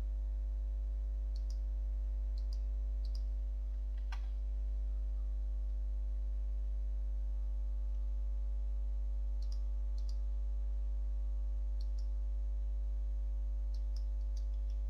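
Steady low electrical hum with a scattered handful of small, sharp computer mouse clicks, about ten, the most distinct about four seconds in.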